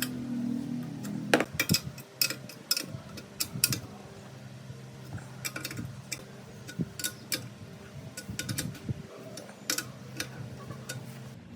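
Irregular sharp clicks and light metal taps, like small parts being handled and fitted at a workbench; a low steady hum stops about a second in.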